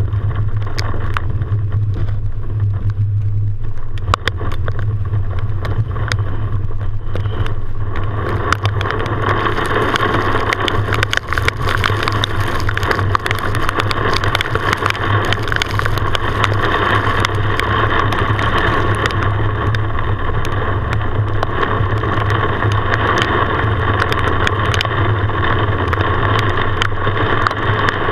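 Vehicle engine drone and tyre noise heard from inside the cab while driving on a rain-soaked road. The hiss of wet tyres and rain grows louder about eight seconds in, with scattered ticks of raindrops hitting the windshield.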